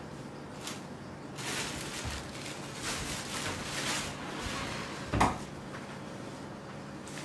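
Saree fabric rustling as it is handled, in a run of soft swishes through the first half, with a short knock about five seconds in.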